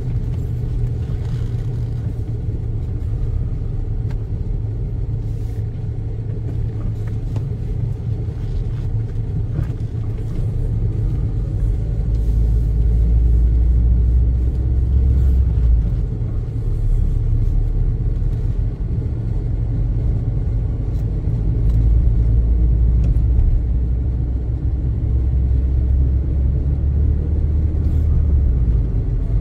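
Car's engine and road rumble heard from inside the cabin while driving: a steady low rumble that grows somewhat louder about twelve seconds in.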